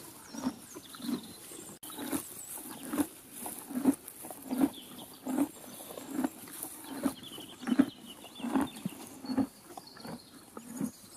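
Horses chewing hay, a crunching munch repeated about every two-thirds of a second.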